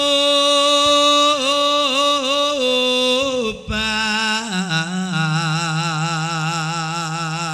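A male singer performing a Javanese langgam in a slow, free style: a long held high note with small ornamental turns, then a slide down about three and a half seconds in to a lower held note with wide vibrato.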